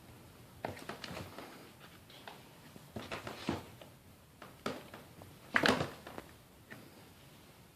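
Kitten playing, with scattered light taps, scuffs and rustles, the loudest a brief cluster of knocks about five and a half seconds in.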